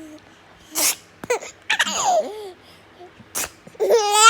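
A person sneezes twice, about a second in and again about three and a half seconds in, and each sneeze is followed by a baby's high-pitched laughter.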